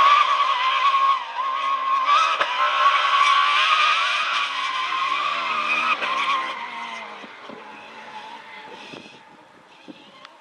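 Rally car engine at high revs as it passes at speed on a dirt track. It holds loud and steady for about six seconds, then fades as the car pulls away.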